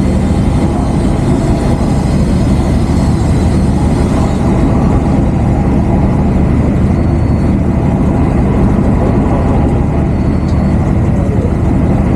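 A fishing boat's engine running steadily, a constant low hum with even engine tones.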